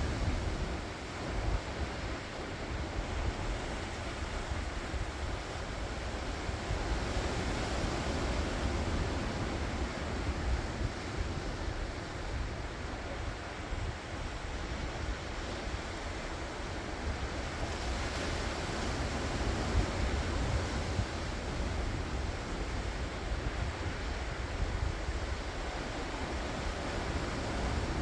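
Ocean waves breaking and washing onto the shore, a steady surf hiss that swells and eases as sets come in, with wind buffeting the microphone as a low rumble underneath.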